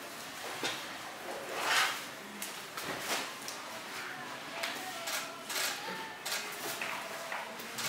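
Light handling sounds: a run of soft rustles, scrapes and small knocks as material is smoothed and positioned by hand on a sewing-machine bed, the loudest a rustle about two seconds in. No machine is running.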